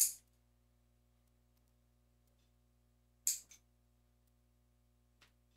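Metal nail clipper snapping through fingernails: a few short, sharp, high clicks a few seconds apart, one just after another about three seconds in.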